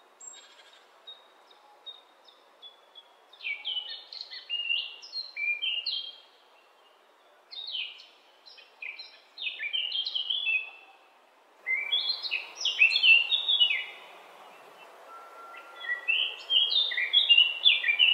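A songbird singing in repeated bouts of quick, falling high notes, four runs of song with short pauses between them. A steady background hiss grows louder about two-thirds of the way through.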